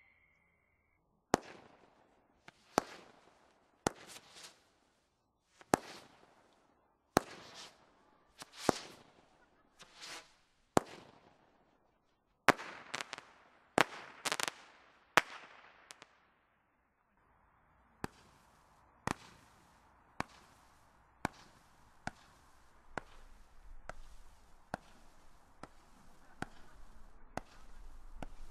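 Consumer firework barrage firing a run of sharp aerial bangs, about one every second or so, each fading out over about half a second. After a short pause the bangs come quicker and lighter, about two a second, over a low rumble that grows toward the end.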